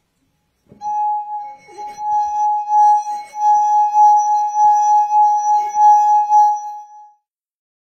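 A glass made to sing: one sustained, steady note with its overtones, pulsing slightly in loudness. It starts about a second in and stops about six seconds later.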